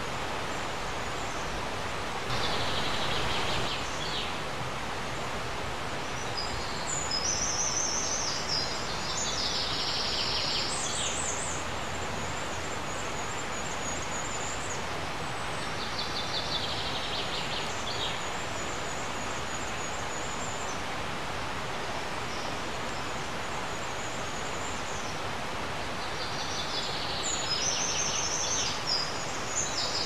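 Steady rush of the river flowing, with small birds singing short, high, twittering phrases every few seconds over it.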